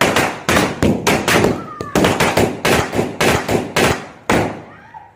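Firecrackers exploding in quick succession: about fifteen sharp bangs, roughly three a second, stopping a little past four seconds in.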